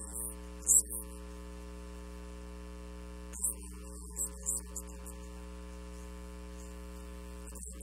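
Steady electrical mains hum, a low buzz with many overtones, carried on the sound feed. A few short hissy bursts stand out, the loudest a little under a second in and a cluster around four to five seconds.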